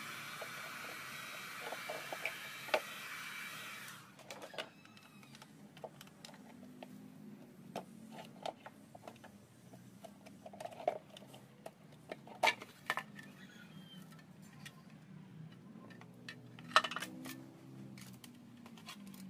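Heat gun blowing steadily along the edge of a plastic motorbike headlamp to soften its seal, switching off about four seconds in. After that come scattered clicks, knocks and scrapes as the lens is pried off its housing and handled, with a sharp snap near the end.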